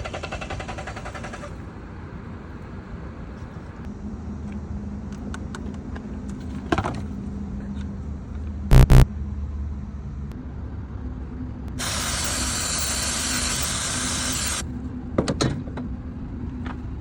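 Car engine running with a steady hum, broken by a few sharp knocks, the loudest about halfway through, and a hiss of spray lasting about three seconds later on.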